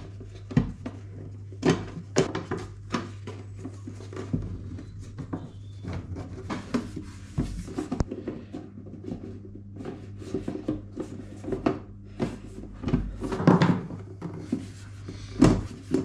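Scattered clicks, taps and soft knocks of hands pressing replacement glass into a tractor mirror's rubber surround, over a steady low hum.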